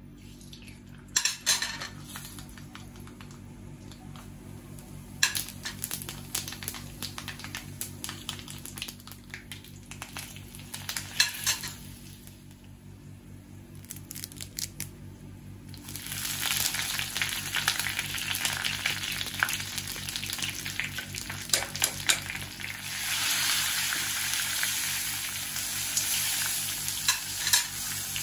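Mustard seeds spluttering in hot oil in an iron kadai, with scattered sharp pops: the tempering (tadka) stage of the curry. About sixteen seconds in, the sizzle grows louder and denser as fresh curry leaves hit the oil alongside dried red chillies.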